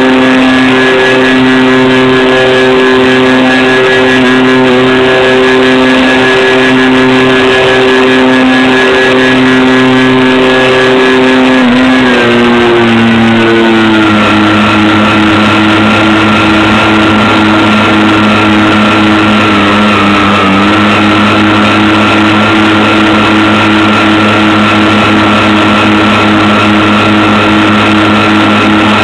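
Twin electric motors of a home-made RC plane running with a steady whine, pulsing slowly where the two motors beat against each other. About twelve seconds in they glide down to a lower pitch and hold there.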